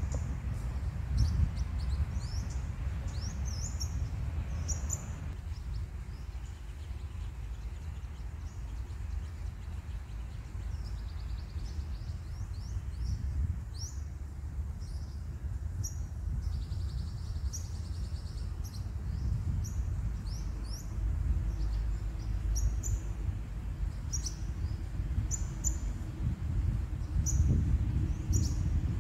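Sunbirds calling: short, high chirps repeated on and off, some sliding up and some down, with a denser run of chirps about halfway through. A steady low rumble lies underneath.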